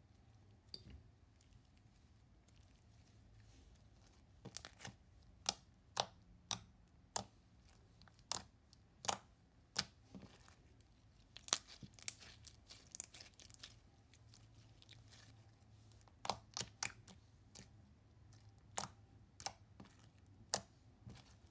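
Slime being pressed and poked by hand, giving sharp little pops at irregular intervals, about one or two a second, starting a few seconds in.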